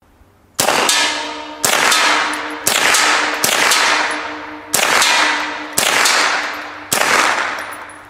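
Remington Nylon 66 semi-automatic .22 LR rifle firing seven shots, about one a second. Each sharp crack is followed by a long ringing decay.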